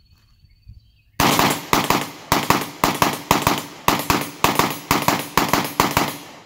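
SIG Sauer MPX pistol with a 4.5-inch barrel and a 22TCM9R conversion, chambered in 22 TCM, fired in a rapid string. Sharp shots come about three a second, starting about a second in and stopping just before the end.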